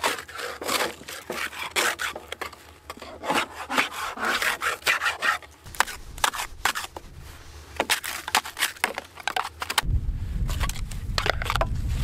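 Stiff-bristled snow brush scrubbing snow and ice off a Jeep's bumper in quick, repeated scratchy strokes.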